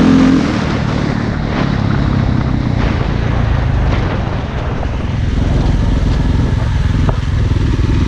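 Dirt bike engine running under way, heard from the rider's helmet, the note easing off briefly about halfway through and then picking up again.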